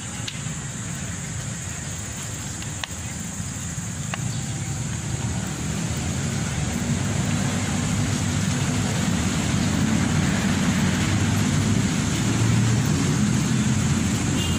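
Road traffic rumble: a steady low engine-and-tyre noise that grows louder from about halfway through, with a few faint ticks early in.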